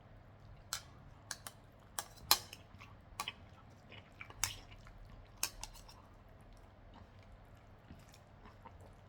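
Cutlery clinking and scraping against a plate while eating stir-fried noodles, a dozen or so sharp clicks, most of them in the first six seconds.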